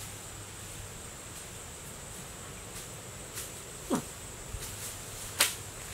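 Steady bamboo-forest ambience with a faint, constant high insect hum. About four seconds in there is a short falling cry, and about a second later a sharp crackle of a bare foot landing on dry bamboo leaf litter.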